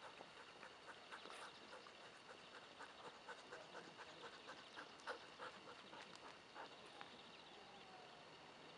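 A dog panting faintly in quick, even breaths, about three a second, stopping about seven seconds in.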